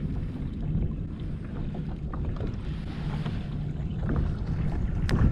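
Wind buffeting the camera microphone on open water, a steady low rumble, with a few small knocks from the camera being handled.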